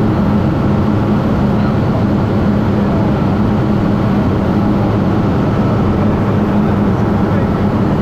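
Single-engine light aircraft's engine and propeller running, a steady drone with a strong low hum, heard from inside the cockpit.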